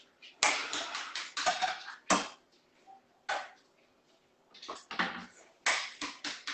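Irregular clattering and rustling, several short knocks and scrapes. The loudest cluster is in the first two seconds, then one knock about three seconds in and another run near the end.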